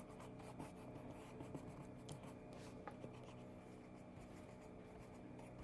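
Faint scratchy strokes of an angled flat brush working acrylic paint roughly onto a painting surface, over a low steady hum.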